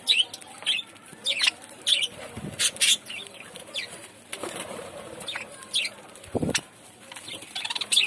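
A flock of budgerigars chirping in short, sharp calls, a dozen or so, at irregular intervals. There is one dull bump about six and a half seconds in.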